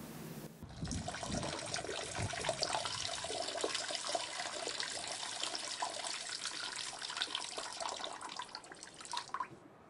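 A man urinating into a bowl set inside a toilet: a steady stream of liquid splashing, starting just under a second in and stopping shortly before the end, with a few low thuds near the start.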